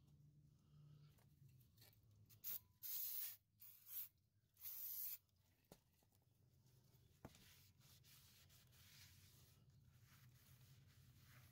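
Aerosol brake cleaner hissing in about four short sprays onto a new drilled and slotted brake rotor, then a rag rubbing softly over the rotor to wipe off its protective coating, with a couple of light clicks in between.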